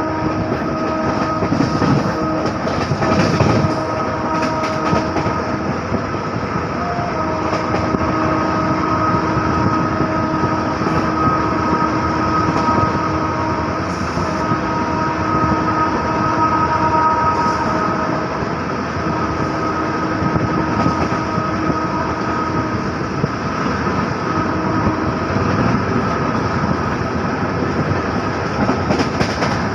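Locomotive horn sounding long and steady as the express runs through a station without stopping, with a short break about four seconds in, over the constant rumble and clatter of the coach's wheels on the track.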